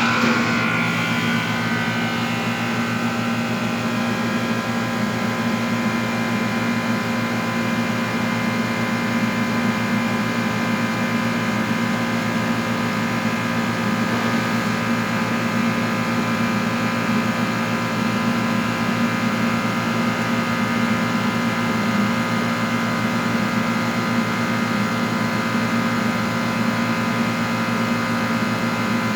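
Steady electrical and mechanical hum of a high-vacuum coating machine's equipment running, made of several steady tones. Right at the start the higher tones shift briefly before settling into the constant drone.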